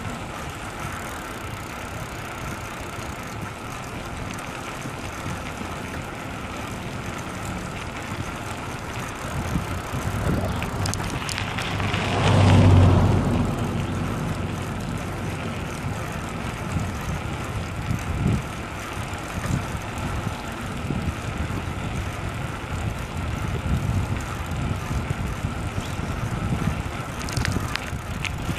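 Wind rushing over a hand-held phone's microphone and the rumble of bicycle tyres on bumpy asphalt while riding. A louder swell with a low hum lasts a second or two about twelve seconds in.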